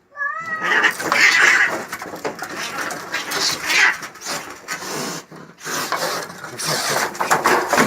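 Cats fighting: a short wavering yowl at the start, then, about half a second in, a loud scuffle of screeching and thrashing that goes on without a break.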